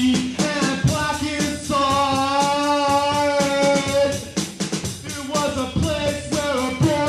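Music: a wavering melodic line over a steady beat, with one long held note starting about two seconds in and lasting about two seconds.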